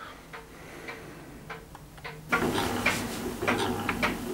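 Old solenoid-powered beam engine running, its mercury-switch breaker rocked by a rod from the beam: light irregular clicks and knocks from the linkage, faint at first and louder from about two seconds in, over a low mains hum.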